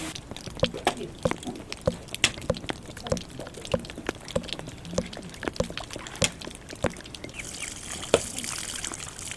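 Water dripping in sharp, separate drops, about three a second, with a steady hiss of running water setting in near the end.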